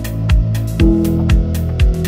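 Chill electronic background music with a steady kick-drum beat about twice a second, hi-hat ticks and sustained chords that change just under a second in.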